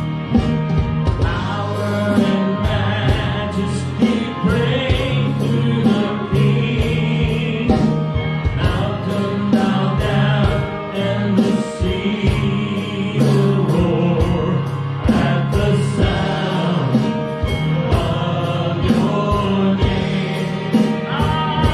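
Live gospel band playing a song: several voices singing together over keyboard, electric guitars and a drum kit keeping a steady beat.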